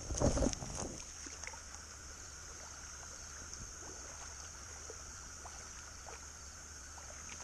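Steady chorus of night insects: a continuous high trill with a lower steady buzz beneath it. A short bout of handling noise comes in the first second.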